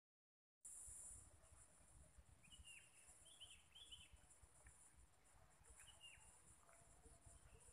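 Near silence: faint outdoor ambience, with a steady high-pitched buzz and a few short, faint bird chirps scattered through. It opens with a split second of dead silence.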